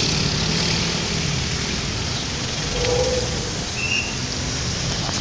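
Steady street traffic noise of passing vehicles, with a couple of brief faint tones about three and four seconds in.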